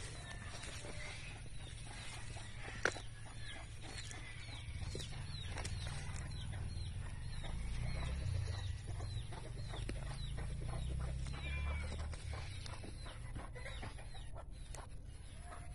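Chickens calling, a short high call repeated about twice a second, over a low steady rumble, with one sharp click near the start.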